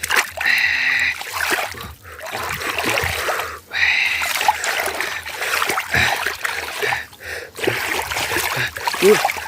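Water splashing and trickling, heard in several short stretches with abrupt breaks between them.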